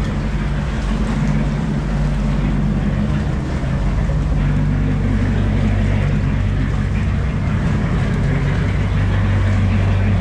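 Inboard engine of an antique Chris-Craft wooden runabout idling steadily at low speed.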